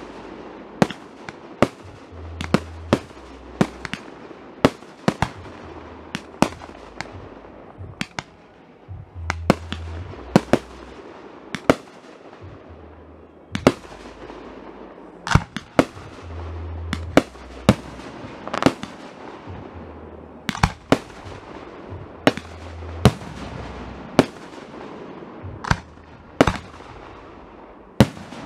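Aerial fireworks display: shells bursting one after another in a rapid series of sharp bangs, about one or two a second, each fading out.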